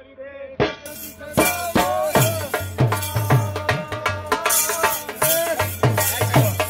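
Dhol, a double-headed barrel drum, beaten in a fast, driving rhythm, with deep bass-head thumps and sharp high strokes, starting less than a second in. A bending tune is carried over the drumming.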